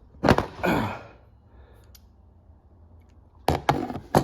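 A sharp knock with a breathy, falling exclamation about a third of a second in, then near the end three quick clicks and knocks as the Knipex pliers wrench is worked against the table edge.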